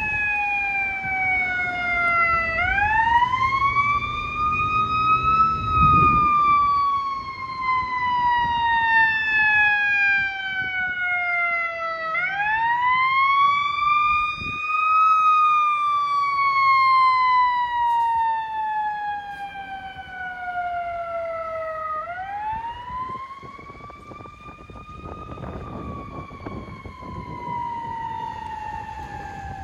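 Fire engine siren wailing in slow cycles, each a quick rise in pitch for about three seconds followed by a slower fall for about seven, three times over, with a low rumble of traffic underneath. The siren grows fainter from about two-thirds of the way through.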